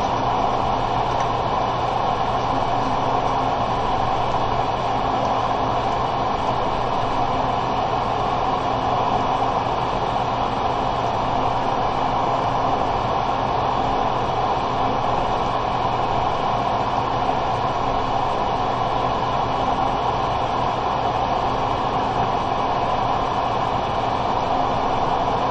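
Steady rushing noise with a low hum underneath, unchanging throughout: the background noise of a computer microphone left open during a screen recording.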